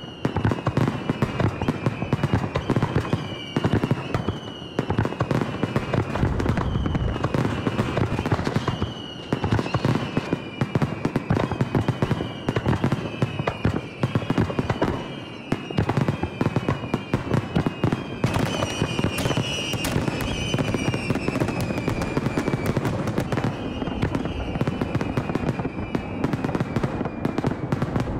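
Aerial firework shells bursting in quick succession: dense bangs and crackling, over and over, with high whistling tones that slide down in pitch again and again.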